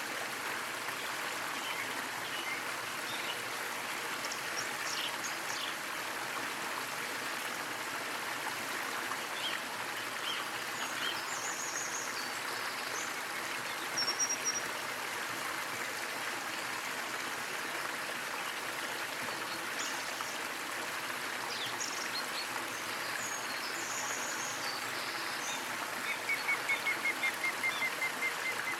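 Small waterfall splashing steadily, with birds chirping intermittently over the water. Near the end a bird gives a quick run of about a dozen even notes, several a second, falling slightly in pitch.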